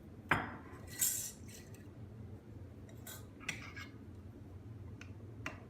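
Home-canned glass jar of pears being handled and its metal lid and band worked loose: a few short sharp clicks and clinks, with a brief scrape about a second in.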